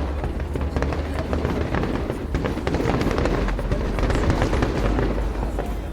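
Fireworks going off: many sharp pops and crackles in quick succession.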